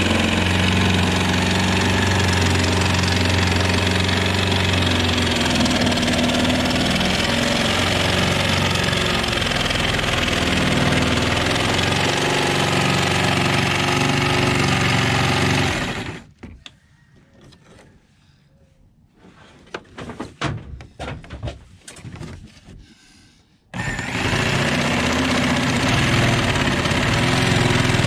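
Jigsaw with its base removed, running steadily as it cuts through a fiberglass sailboat cabin top. About 16 seconds in it stops for several seconds, leaving a few faint knocks and scrapes, then starts cutting again.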